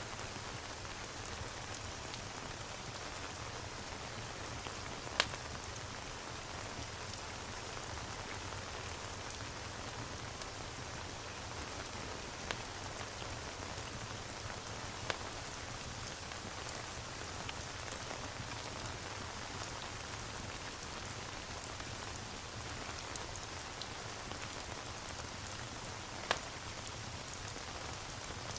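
Steady rain falling, with a few sharp single crackles from a wood fire in a fireplace.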